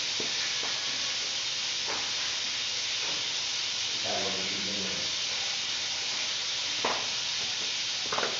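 Food sizzling steadily in hot oil in a wok on a gas stove, with a few faint clicks and a brief faint voice about halfway through.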